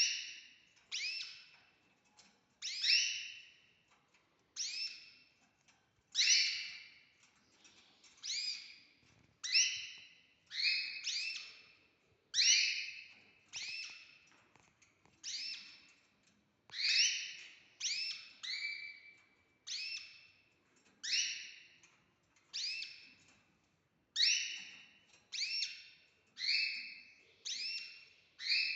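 Canary chicks begging with repeated high cheeps, about one a second, each call sweeping up quickly and then holding its pitch.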